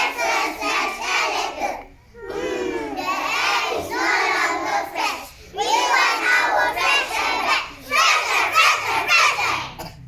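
A group of young children reciting a poem together in unison, in four loud phrases with short breaks between them.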